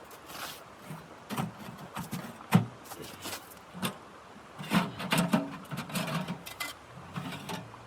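Irregular clicks and knocks with rubbing in between, denser about five seconds in.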